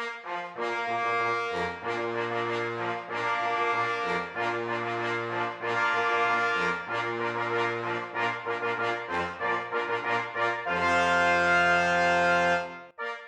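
Brass-band intro music: a melody of held, rich brass notes ending on a long held chord about two seconds before the end.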